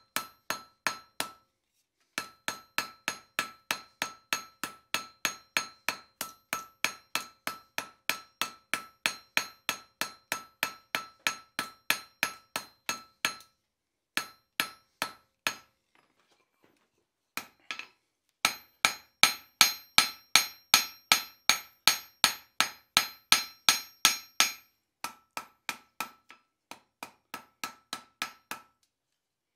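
Hand hammer blows on hot 5/8 inch round steel bar on an anvil, drawing the bar out thinner, about three blows a second, each with a clear metallic ring from the anvil. The blows stop for a few seconds about halfway, come back as a run of heavier blows, then lighter ones near the end.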